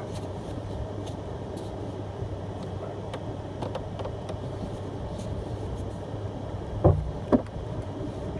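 Pickup truck engine running steadily as the truck moves along a rough trail, with two loud knocks about half a second apart near the end as the truck strikes something.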